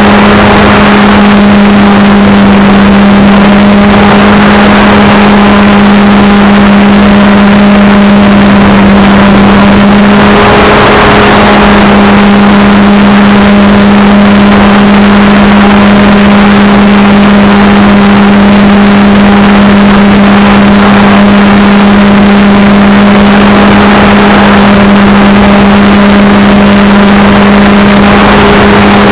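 RC airplane's motor and propeller running at steady cruising speed, a loud unbroken drone with a constant pitch, over heavy rushing air noise.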